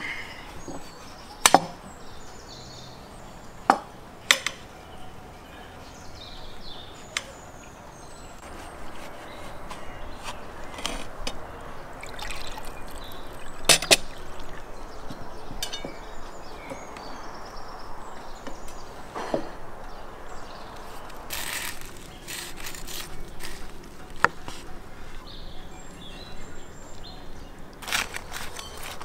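Liquid poured from a clay jug into drinking glasses, a soft steady trickle through the middle stretch. Several sharp clicks of a knife against a plate and a wooden board come before and after it.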